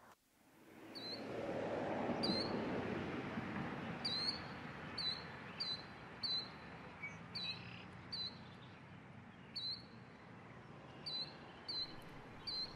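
A small bird chirping: about a dozen short, high chirps at uneven intervals over a soft rushing background that swells about a second in and slowly fades.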